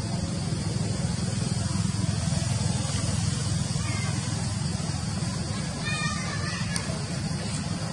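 Steady low rumbling background noise with a hiss over it, and a brief high-pitched call about six seconds in.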